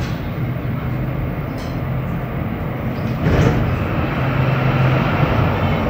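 Montréal Metro Azur (MPM-10) train heard from inside the car, moving slowly along a station platform with a steady low hum from its traction equipment and rolling gear. There is a brief louder rush about three seconds in.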